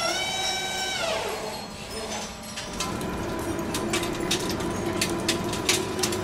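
Large metal-turning lathe machining a steel shaft: a whine with several overtones drops in pitch and fades within the first second or so. From about halfway, a steady machine hum with a held tone, broken by many sharp clicks.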